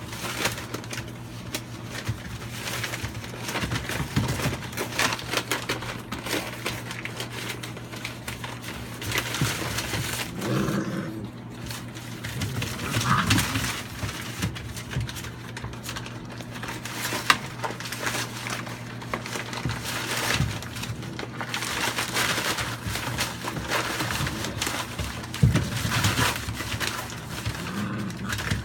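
American Staffordshire bully puppies scrabbling and playing on loose newspaper, the sheets rustling, crinkling and tearing irregularly under their paws and mouths, with a few sharper crackles.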